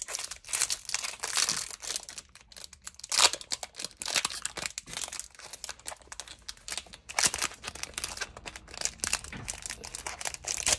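Foil wrapper of a Pokémon trading-card booster pack crinkling in irregular crackles as it is handled and torn open by hand.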